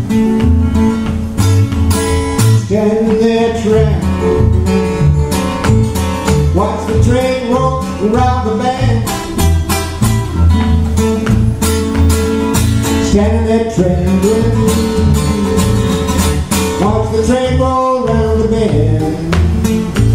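Two acoustic guitars playing a steady strummed rhythm, with a melody line of bending notes over it at intervals.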